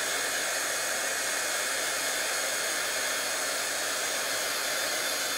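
Embossing heat gun running steadily, blowing hot air to melt embossing powder on a stamped card: an even rush of air with a faint high whine.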